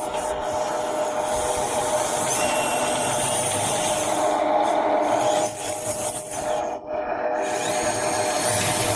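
A 1/14-scale RC excavator travelling on its metal crawler tracks: the electric drive motors give a steady whine over a grinding, rubbing rattle from the metal track links. The sound drops out briefly twice about two-thirds of the way in, then carries on.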